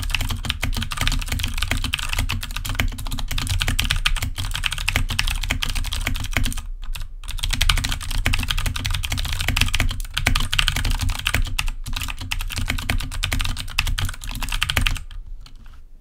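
Fast typing on a KRUX Neo Pro 60% mechanical keyboard with clicky Gateron Blue switches on a metal plate: a dense, continuous stream of sharp key clicks. There is a brief pause about seven seconds in, and the typing stops about a second before the end.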